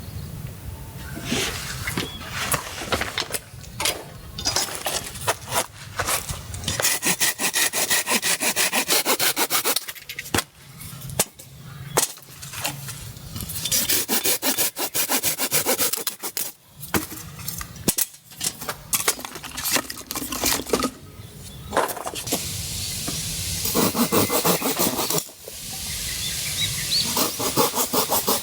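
Hand saw cutting wood in fast back-and-forth strokes, in several bouts with short pauses between.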